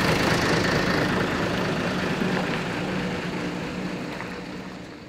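Steady drone of a vehicle engine running, fading out near the end.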